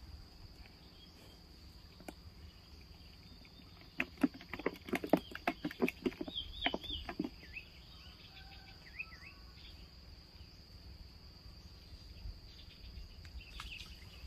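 Insects trilling steadily at one high pitch, with a quick run of sharp clicks and knocks from about four to seven seconds in and a few short bird chirps.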